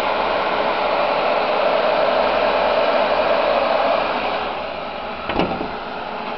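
Nissan TD27 2.7-litre four-cylinder turbo-diesel running, heard close up in the open engine bay as a steady rushing whoosh, which may include the electric fan on the intercooler. It gets quieter about four seconds in, and there is one sharp click near the end.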